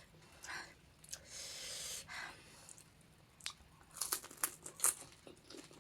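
Crunching and chewing of crisp panipuri shells and chips in the mouth, with a breathy hiss a little after a second in and a run of sharp crackly crunches in the second half.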